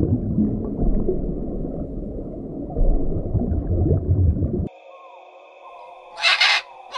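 Underwater ambience: dense, low water noise that cuts off abruptly about two-thirds of the way in. Steady high tones follow, and near the end comes one loud, harsh scarlet macaw squawk.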